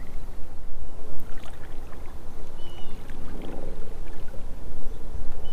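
Steady low, fluttering rumble of wind buffeting the microphone over open water, with a short bird chirp about two and a half seconds in.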